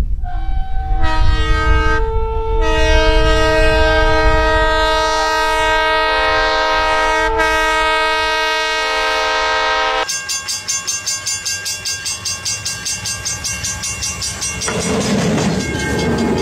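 Diesel locomotive plowing through snow, its multi-tone air horn sounding a chord over a low engine rumble: two short blasts, then one long held blast. The horn cuts off about ten seconds in, giving way to a fast rhythmic clatter of the train going by, with a rushing hiss of snow spray near the end.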